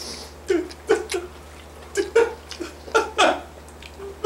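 A man crying, a string of short, broken sobs.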